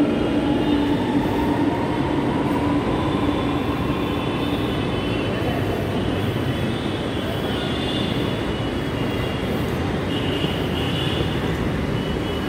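Metro train running noise: a steady rumble with an electric motor whine that rises in pitch over the first few seconds, and a low hum that stops about two and a half seconds in.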